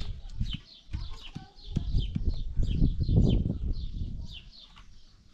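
Small birds chirping, a quick string of short high notes each falling in pitch. Under them is a low rumble with scattered knocks, loudest about three seconds in.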